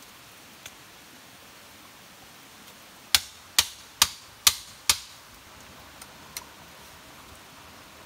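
Five sharp knocks about half a second apart, a stake being hammered into the ground, with a couple of faint ticks from a campfire.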